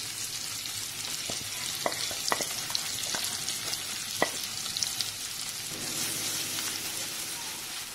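Paneer cubes shallow-frying in hot oil in a pan: a steady sizzling hiss, with a few sharp crackles in the first half.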